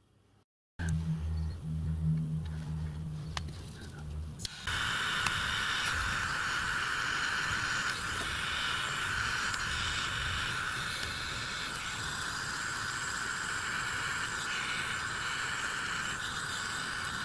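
A gas soldering torch lights about four and a half seconds in and burns with a steady hiss while heating a brass joint for soldering. Before it, there is a broken low hum.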